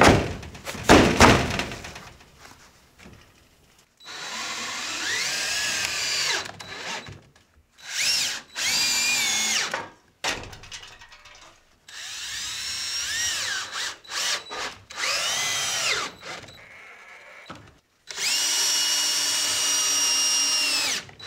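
Power drill driving screws into framing lumber in several runs, its motor rising in pitch as it speeds up and dropping as it stops, after a couple of loud knocks at the start. The last run is a steady whine of about three seconds.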